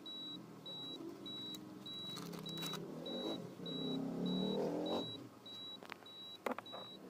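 A high electronic beep repeating steadily, about two short beeps a second. Beneath it is faint audio playing from the car head unit under test, with a few clicks near the end.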